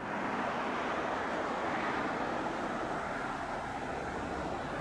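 Steady, even rushing of distant vehicle traffic, with no distinct engine note or rail clatter.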